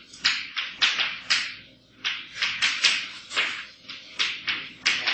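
Chalk writing on a blackboard: a quick run of sharp tapping and scraping strokes, about three a second, with a brief pause a little under two seconds in.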